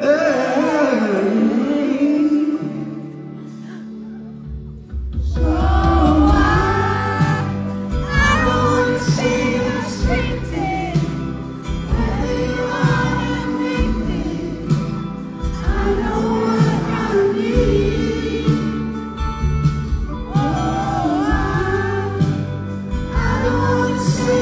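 Live pop ballad from a band with a male singer's lead vocal, captured from the audience. The vocal is over a sparse backing at first, and heavy bass and drums come in about four and a half seconds in.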